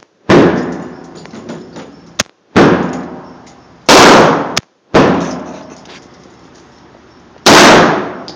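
Colt AR-15 rifle in .223 firing five single shots at uneven intervals, each a very loud crack with a trailing echo. Two fainter, sharp cracks fall between them.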